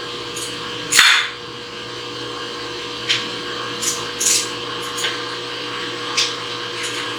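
Steady electrical hum from the powered-up CNC knee mill, with several short clicks and scrapes of handling on the machine. The loudest is a sharp click about a second in.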